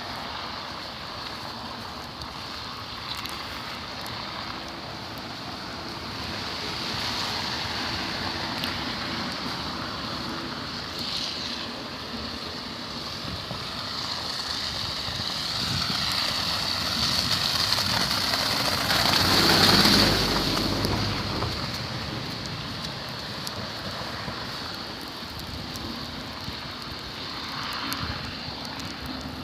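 Steady traffic and wind noise on a bridge. It swells as a vehicle passes close by about twenty seconds in, then fades.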